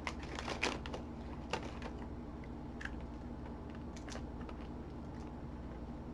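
Scattered sharp crunches and crackles from sweet potato chips being handled and bitten, several in the first second and then only now and then, over a steady low hum.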